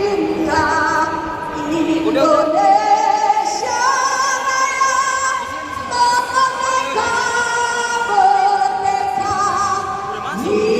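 A woman singing a slow melody with long held notes and vibrato.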